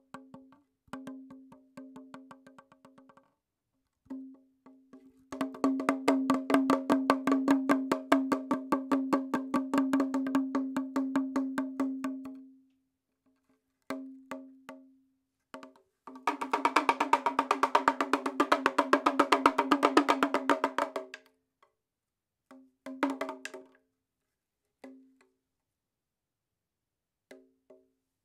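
Background music: a held note under fast runs of percussive clicks, in two longer stretches and a few short bursts, stopping and starting with brief silences.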